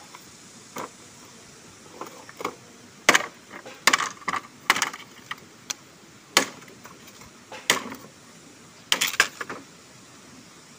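Dry bamboo poles knocking against each other as they are lifted and handled: a string of irregular sharp knocks, the loudest clustered a few seconds in and again near the end.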